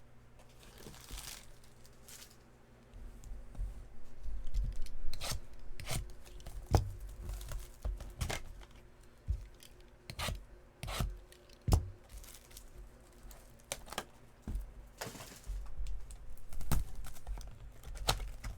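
Trading-card packs and cards being handled: a couple of short tearing sounds as wrappers are ripped open, among many scattered light taps and clicks of cards and packaging being shuffled and set down.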